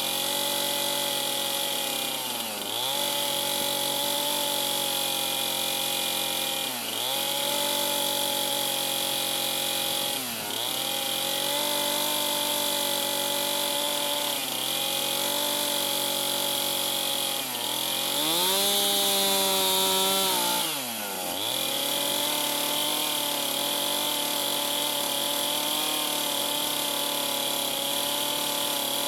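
Chainsaw running at a steady working speed while cutting a log to a scribe line. Its pitch dips briefly every three to four seconds as the throttle is eased, and there is a louder, higher-revving stretch about two-thirds of the way in.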